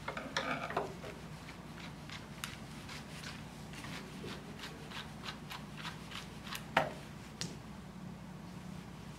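Grooming scissors snipping the fur around a small dog's face: a quick run of snips at the start, then short crisp snips about once or twice a second, with one louder snip near the end.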